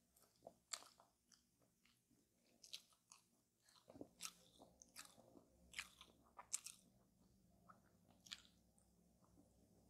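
Close-miked biting and chewing of a coconut tart: a run of sharp, irregular crunches that dies down near the end.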